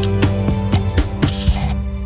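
Background music with a steady beat, about four beats a second over held chords, and a brief cymbal-like hiss near the end.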